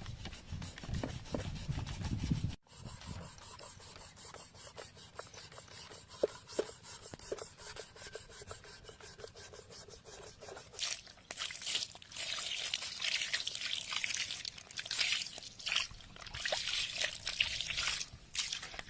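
Repeated scraping and rubbing strokes with a few light knocks, faint at first and louder and denser from about eleven seconds in.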